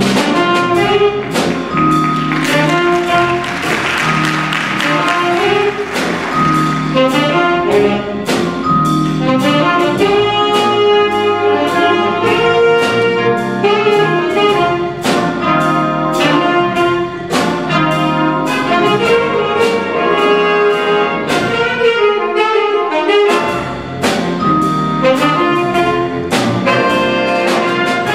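Jazz big band playing: saxophone and brass sections over a drum kit keeping a steady beat.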